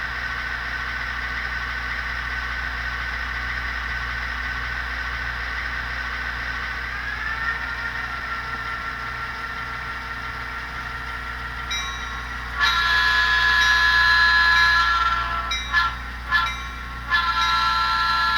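HO-scale GP9 diesel model's LokSound sound decoder playing diesel locomotive sound through its small onboard speaker: the engine runs steadily and drops slightly in pitch about seven seconds in. Near the end the decoder sounds the locomotive horn, which is the loudest sound: one long blast, two short ones, then another long one.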